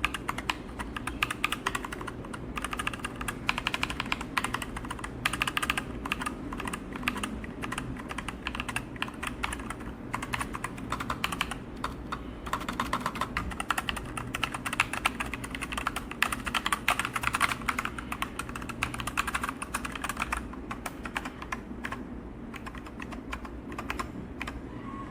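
Typing on a mechanical keyboard fitted with Akko Lavender Pro V3 switches: a fast, continuous run of key clicks that thins out near the end.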